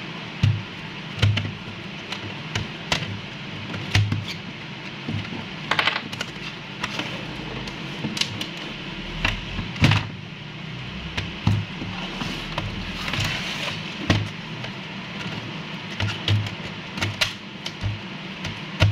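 Fingernails tapping on a laptop's plastic bottom casing: irregular sharp taps, with a couple of brief scratching sounds, over a steady background hiss.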